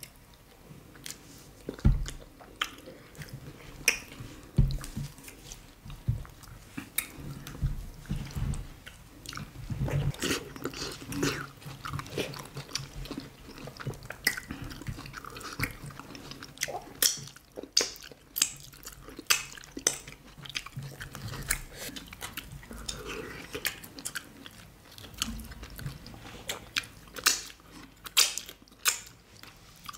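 Eating fufu and banga soup by hand, close to the microphone: wet chewing and biting, with frequent irregular sharp mouth clicks.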